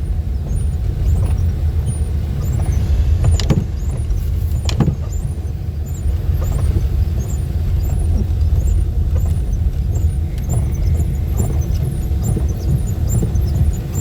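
Car driving noise heard from inside the cabin: a steady low rumble of tyres and engine on the road, with two sharp knocks about three and a half and five seconds in.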